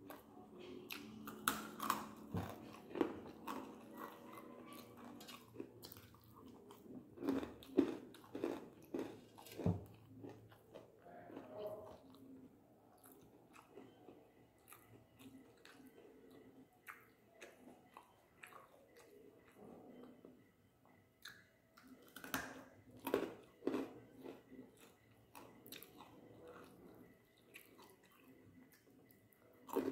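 Close-up chewing and mouth sounds of a person eating string hoppers (idiyappam) with curry by hand. The sounds come in irregular bursts of wet smacks and soft crunches, with a quieter stretch in the middle.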